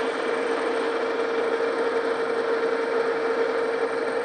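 Metal lathe running steadily under power, spinning the capstan drum shaft: a steady hum over an even mechanical whir.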